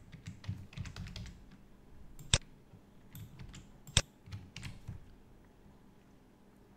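Computer keyboard typing in short runs of keystrokes, with two sharper, louder clicks, one a little over two seconds in and one about four seconds in. The keys stop about five seconds in.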